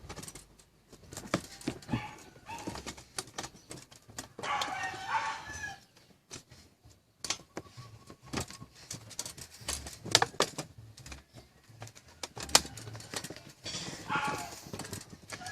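A bird calls twice, once about four seconds in and again near the end. Scattered sharp clicks and knocks run throughout.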